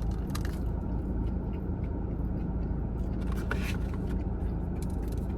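A person biting and chewing a fried Korean corn dog, with a few short crunches about half a second in and again about three and a half seconds in, over a steady low hum.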